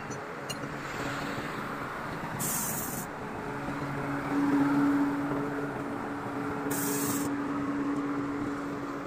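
Truck engine running steadily outdoors, a low hum over general site noise, loudest a little under halfway through.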